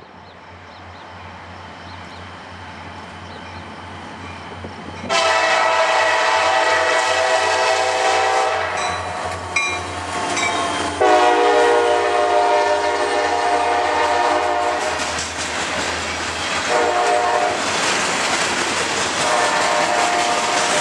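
Wheeling & Lake Erie diesel freight train approaching and passing, its engine and wheel rumble growing louder. After about five seconds the lead locomotive's air horn sounds in the grade-crossing pattern: two long blasts, a short, and a long. Wheels clatter over the rail joints as the tank cars roll by.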